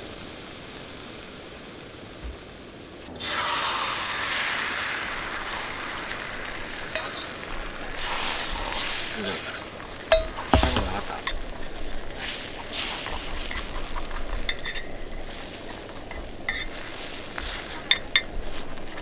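Frying in a hot pan. A quieter hiss under the bread gives way about three seconds in to a sudden louder sizzle of beaten egg, which carries on with a utensil scraping and clinking against the pan as the egg is stirred.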